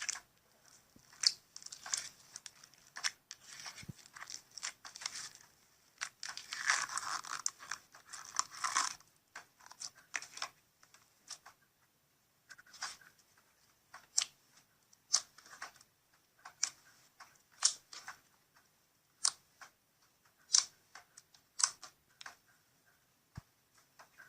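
Slime being squeezed and worked in a slime ASMR video playing from a screen: sharp crackling pops and clicks. A dense run of crackling comes about six to nine seconds in, then single pops about once a second.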